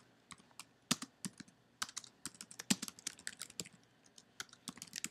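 Typing on a computer keyboard: an irregular run of key clicks, a few a second, with a short pause in the middle.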